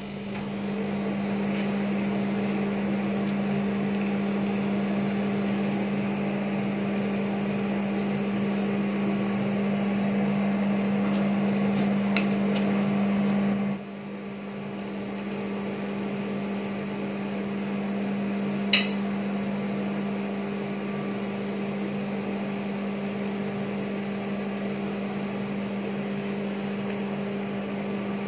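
Steady hum of a rolled ice cream machine's refrigeration unit beneath its frozen steel pan, with a metal spatula scraping and tapping the ice cream mixture across the pan. The scraping stops abruptly about halfway through, leaving the hum alone, and a single sharp click sounds a few seconds later.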